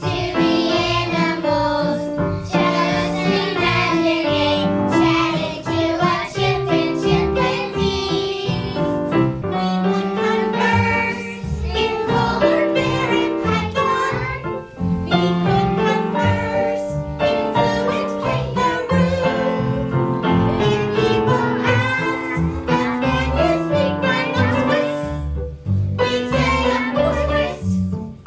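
Background music: an upbeat children's-style song with singing over instruments and a steady beat.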